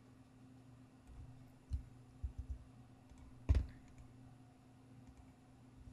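A few separate clicks of a computer mouse and keyboard, the loudest about three and a half seconds in, over a faint steady low hum.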